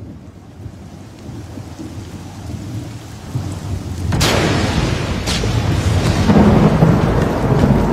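Thunderstorm: low rumbling, then a sharp thunderclap about four seconds in and a second crack about a second later, followed by rolling thunder over steady rain.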